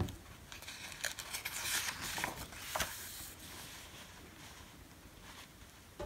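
A page of a picture book being turned by hand: paper rustling and crinkling for about three seconds, with a sharp crackle of paper near the middle, then a soft click as it settles near the end.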